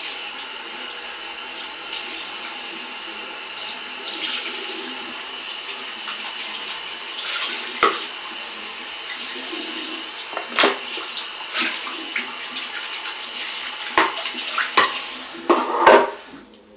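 Water running from a tap into a sink while a small dish is rinsed under it, with several knocks of the dish against the sink. The water stops near the end.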